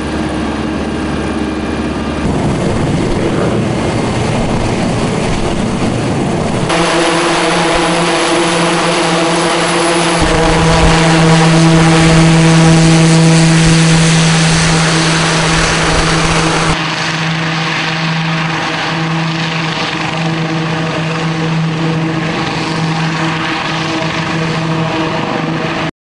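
Eurocopter X3 hybrid helicopter in flight: a steady hum of rotor, wing propellers and turbine, with several held tones over a rushing hiss. The sound changes suddenly about 2, 7 and 17 seconds in, and is loudest between about 7 and 17 seconds, swelling around 12 to 13 seconds.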